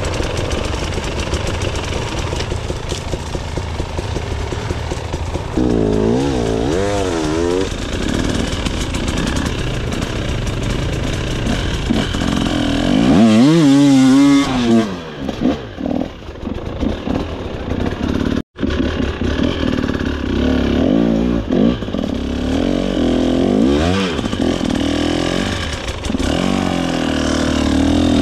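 KTM EXC 300 TBI two-stroke dirt bike engine being ridden off-road, its revs rising and falling over and over with the throttle. The sound cuts out for an instant a little past halfway.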